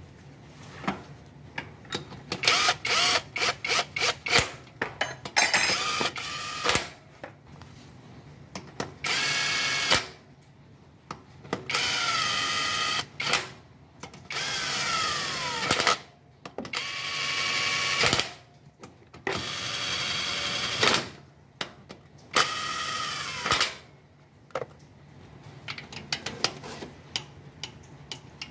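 Power tool with a socket spinning in the new balancer shaft's mounting bolts, in several short runs of a second or two, the motor's whine falling away as each run stops. Before the runs there is a stretch of rapid mechanical clicking, and fainter clicking near the end as the bolts are worked by hand.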